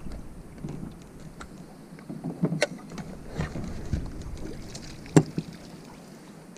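Scattered knocks and clunks on a jon boat's deck and hull as it pulls up against the bank, with the loudest knock about five seconds in.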